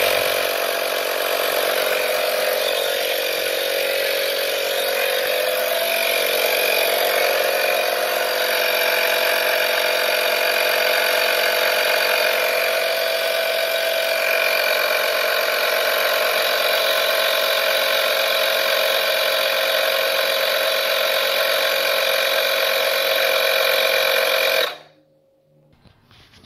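AstroAI portable electric tire inflator running steadily as its small compressor pumps up a bicycle tire, a continuous mechanical drone that cuts off suddenly near the end.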